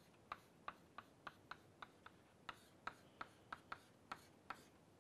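Chalk tapping and scratching on a chalkboard as symbols are written: a quick, irregular run of faint clicks, about three or four a second.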